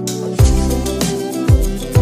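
Background music: a steady melody over a deep, thudding beat that comes in about half a second in.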